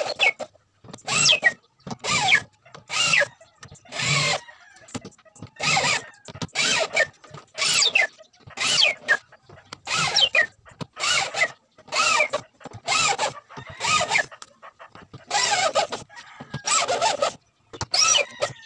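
Handheld electric drill driving screws into a wooden speaker-box cover in a quick series of short bursts, about one a second, the motor's whine dropping in pitch toward the end of each burst.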